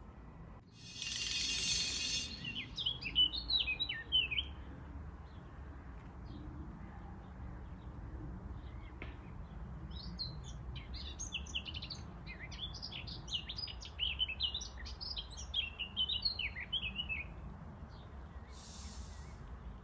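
Small birds chirping and twittering in quick, high runs over a low steady rumble. A short hissing whoosh comes about a second in and another near the end.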